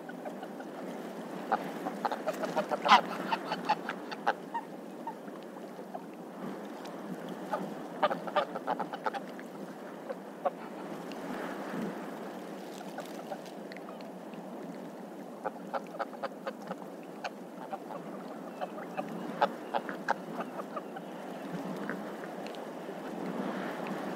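Barnacle geese calling: short, sharp calls in bursts of several at a time, with pauses between, over a steady background noise.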